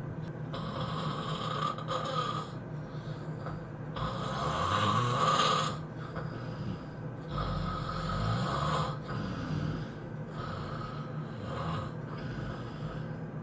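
A sleeping person snoring heavily: a series of loud, rasping snores every couple of seconds, the loudest about four seconds in.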